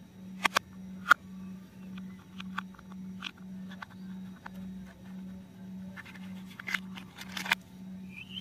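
Hard plastic toy helicopter parts clicking and knocking as they are handled and pulled apart by hand: a few sharp clicks about half a second to a second in, lighter ticks after, then a quick cluster of clicks near the end. A low hum pulsing about twice a second runs underneath.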